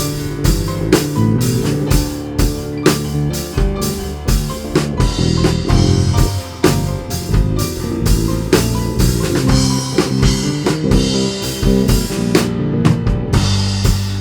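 Live worship band playing an instrumental passage between sung lines: drum kit keeping a steady beat under guitar and sustained chords.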